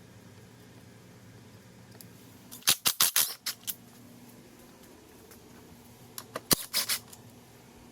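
Metal tools and parts clinking and rattling in two short bursts, about three seconds in and again between six and seven seconds, over a faint steady hum.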